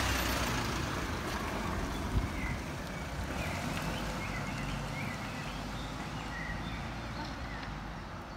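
Mercedes-Benz Sprinter minibus driving away, its engine and tyre noise fading as it goes, with a short knock about two seconds in.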